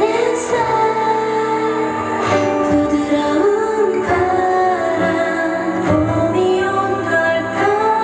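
K-pop girl group song played live over the concert sound system: female vocals singing a melody over a pop backing track.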